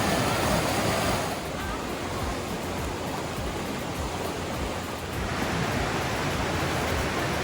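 Steady rushing of fast-flowing stream water, a little quieter after the first second or so.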